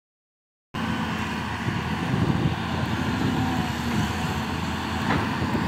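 LiuGong 939E long-reach excavator's diesel engine running steadily under working load as the arm digs into sand, starting after a short silence.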